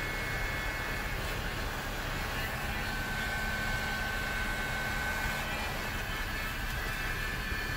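Handheld heat gun running steadily: a hiss of blowing air with a high, even motor whine.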